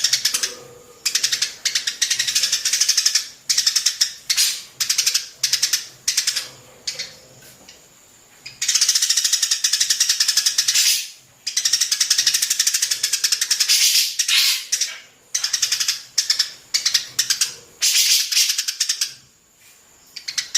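Sparrows chattering: fast, rattling runs of high notes in bursts of one to three seconds, with two longer unbroken runs midway.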